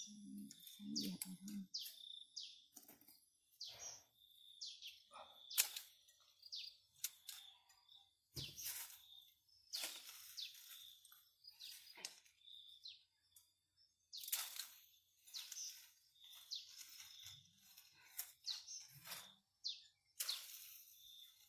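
Irregular rustles, snaps and knocks of lemons being picked by hand from the tree and handled, with birds chirping and a steady high tone underneath.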